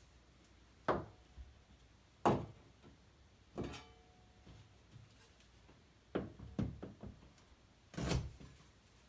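About half a dozen sharp knocks and taps of a wide steel joint knife and a roll of mesh drywall tape against the wall while the tape is pressed on and smoothed, a few with a brief metallic ring.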